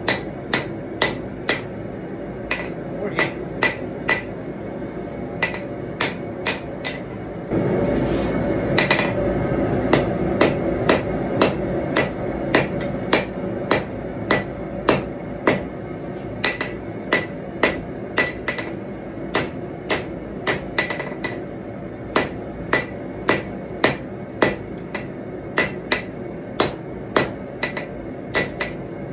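Hand hammer striking red-hot steel on an anvil in a steady rhythm of about two blows a second, each blow giving a sharp clank with a brief bright ring, as a knife blade is forged. A steady rushing noise swells under the blows for several seconds near the middle.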